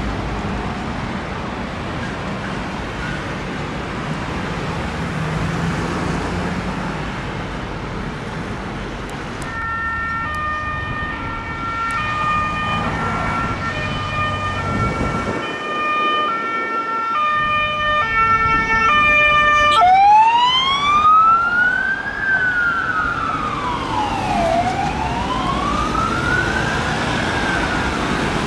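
Road traffic, then from about ten seconds in an emergency vehicle's siren sounding a two-tone hi-lo pattern, which switches at about twenty seconds to a wail that rises and falls over a few seconds each way.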